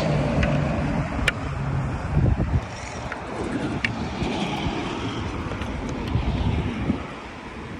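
Road traffic on a nearby highway: a steady rumble of passing vehicles that swells about two seconds in and eases near the end.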